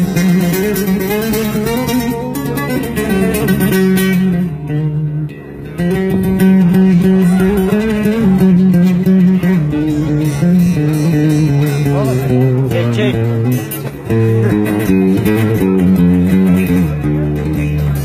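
Bağlama (Turkish long-necked saz) playing a slow bozlak melody in long held notes, with a brief drop in loudness about five seconds in.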